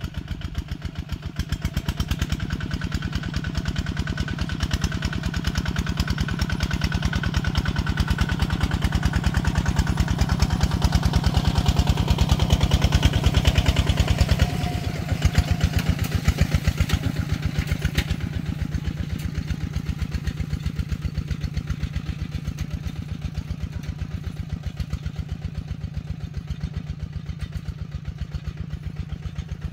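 Tractor engine running with an even, pulsing beat. It grows louder over the first half, drops suddenly about halfway through, and then runs on at a lower level.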